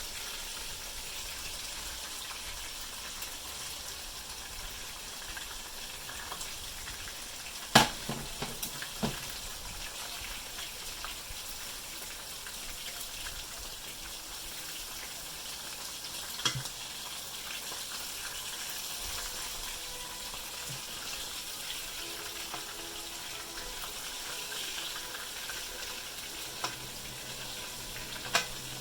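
Boneless skinless chicken thighs sizzling steadily in a frying pan. A few sharp knocks cut through, the loudest about eight seconds in.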